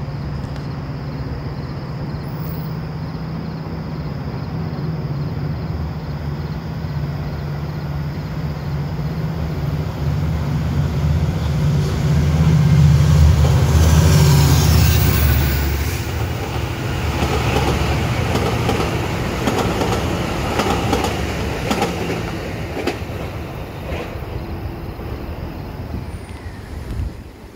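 A passing commuter train led by an EXO F59PHI diesel locomotive. The engine drone grows as it approaches and is loudest as the locomotive passes, about halfway through. Then the bilevel coaches follow with rumbling wheels and repeated clicking over the rail joints, fading until the sound cuts off near the end.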